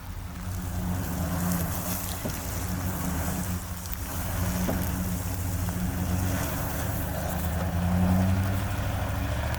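An engine running steadily with a low hum, under a hiss of noise. It swells slightly around eight seconds in.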